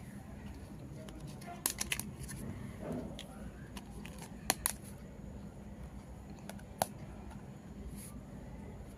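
Scattered small sharp clicks and taps of miniature plastic toy kitchen pieces being handled: a quick cluster of three about two seconds in, a pair about halfway through, and single clicks later.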